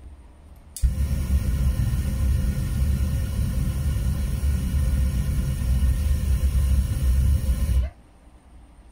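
Forced air driving the heat-treating furnace: a loud, steady rushing roar that switches on about a second in and cuts off abruptly near the end.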